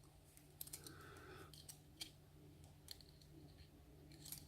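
Faint, scattered metallic clicks from lock picking tools working the pins of a pin-tumbler lock cylinder, about six irregular ticks over a low steady hum.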